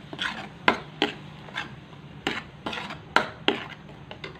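Metal ladle clinking and scraping against a metal wok as it stirs a green chili spice paste with lemongrass stalks: irregular knocks, about two a second.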